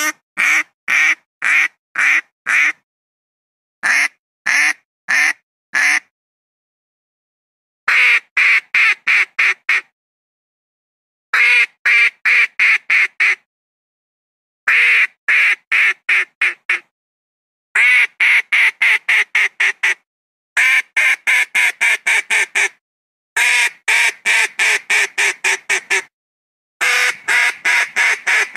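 Philippine duck quacking in quick runs of short, evenly spaced quacks, about four or five a second, each run lasting about two seconds with a second or two of silence between runs. The runs grow longer toward the end. It is a papa call played to draw wild ducks down.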